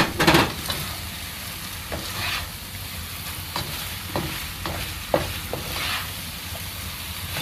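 Bitter melon and scrambled eggs being stir-fried in a nonstick wok: a steady sizzle with irregular scrapes and knocks of the spatula against the pan as the food is tossed.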